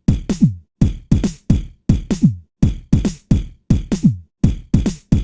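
Background music: an electronic drum beat of sharp hits, several a second, with deep kicks that slide down in pitch.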